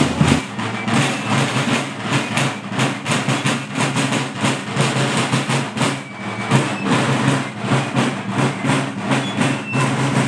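A military marching band playing in the street: drums beating a fast, even march rhythm over low, held brass notes.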